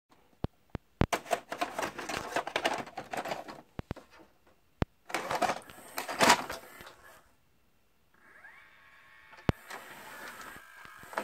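Philips VR550 VHS video recorder with its cover off, loading a cassette: a few sharp plastic clicks, then rattling clatter of the tape going into the front-loading carriage, and a second burst of clatter as the carriage mechanism draws it in and lowers it onto the deck. After a short lull a motor whirs up with a rising whine and settles into a steady whirring hum, with one sharp click as it starts up.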